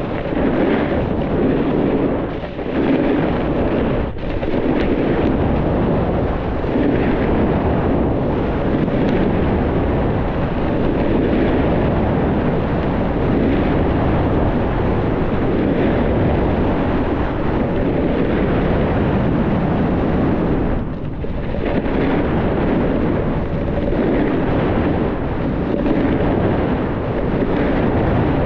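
Wind buffeting the camera microphone during a downhill ski run, a loud steady rumbling rush mixed with skis sliding over snow, easing briefly a few times.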